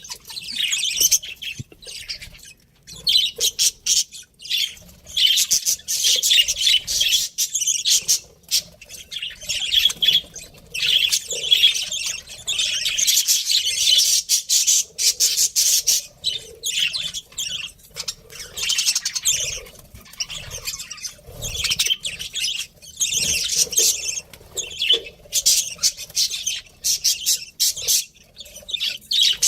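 Budgies (budgerigars) chirping and chattering in rapid, busy bursts with brief pauses.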